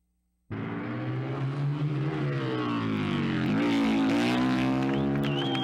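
Harley-Davidson XR-750 motorcycle engine running hard at high revs on the run-up to a jump. It cuts in about half a second in, holds a steady pitch, dips briefly past the midpoint and climbs again.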